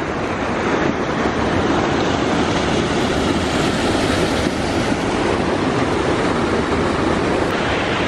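Fast-flowing creek water rushing over rocks: a loud, steady rush.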